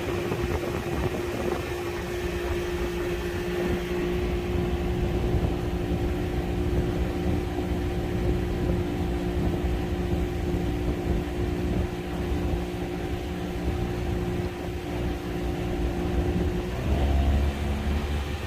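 Boat motor running steadily under way, a constant hum. About a second and a half before the end the engine note changes and a deeper rumble comes in.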